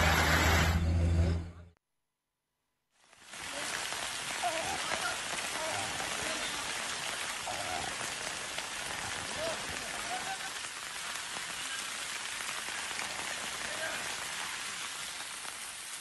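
A steady pitched humming drone cuts off about a second and a half in. After a brief gap, steady rain sets in, an even hiss of rain falling on surfaces.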